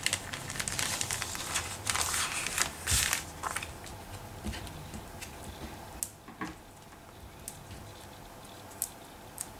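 Paper crafting noises from cardstock and adhesive foam squares being handled and pressed down: crinkling and small crackles, busiest in the first three or four seconds, then only scattered light taps.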